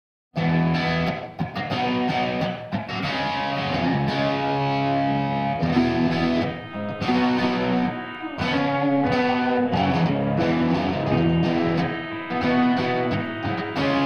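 Electric guitar playing a rock passage of held chords and notes, starting suddenly out of silence.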